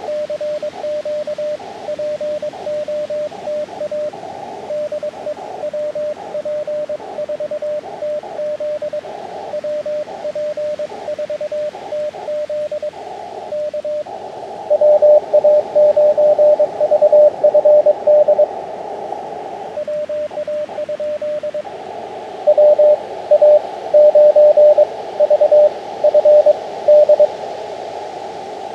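Morse code (CW) on an Elecraft KX2 transceiver: a single mid-pitched tone keyed in rapid dots and dashes. About halfway through, and again from about three quarters of the way, the code comes through louder with a band of hiss around it.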